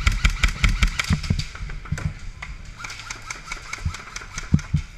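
An airsoft electric gun firing a rapid string of shots, about eight a second, that stops about a second and a half in. A few scattered single shots or knocks follow.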